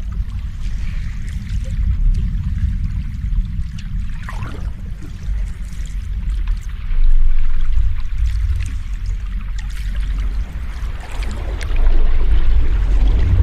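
Sea waves washing in with a deep low rumble, swelling louder about seven seconds in and again near the end.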